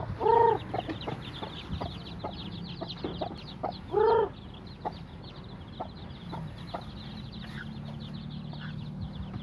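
Native chicken chicks peeping continuously in rapid high chirps, with an adult chicken giving two loud calls, one right at the start and one about four seconds in. A low steady hum comes in at about six seconds.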